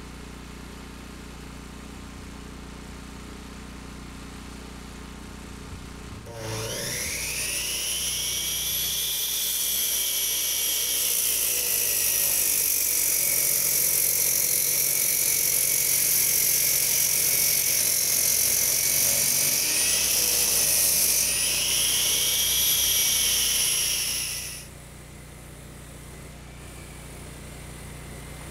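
Masonry saw cutting concrete block. About six seconds in it spins up with a rising high whine, and the whine drops in pitch while the blade is in the cut and climbs again near the end. It stops suddenly after about eighteen seconds.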